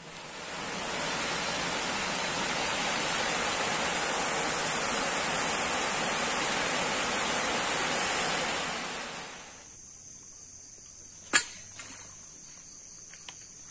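A steady rushing hiss fades in over about a second, holds, and fades away about nine seconds in. After that there is only quiet outdoor background, with one sharp click about eleven seconds in.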